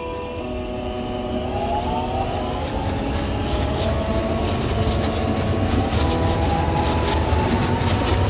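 Electric commuter train running along the track past a station platform: a heavy rumble with a slowly rising whine, and rapid clicks and rattles from the wheels in the second half.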